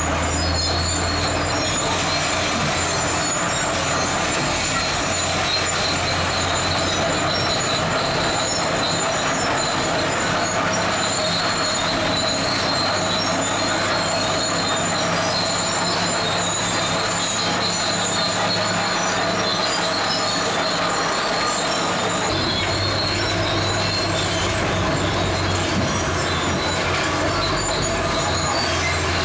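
Zoomlion crawler bulldozer working gravel: its steel tracks give a steady high-pitched squeal over the diesel engine. The low engine drone drops back early on and swells again about three-quarters of the way through.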